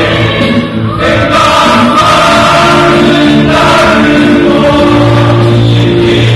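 A choir singing in parts, holding sustained chords that shift every second or so.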